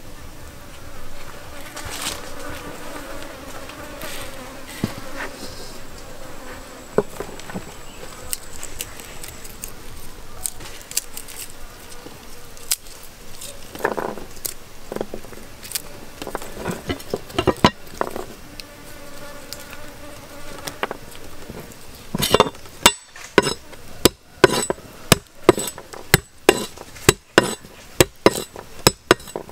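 Flies buzzing steadily, with scattered small knocks. In the last several seconds a steel cleaver chops garlic cloves on a thick wooden chopping board, with sharp, regular strikes about two a second, the loudest sound.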